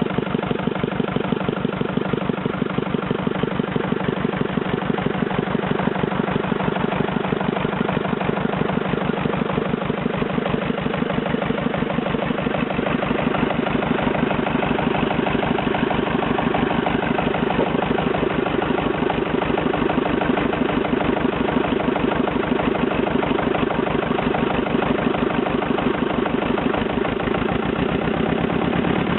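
Petter AVA2 air-cooled two-cylinder diesel engine running steadily at an even speed on its first run after restoration, its firing pulses coming in a fast, regular beat.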